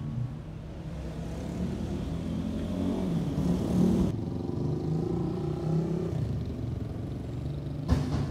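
Street traffic: cars driving past close by with their engines running, the loudest pass about halfway through. A short sharp knock near the end.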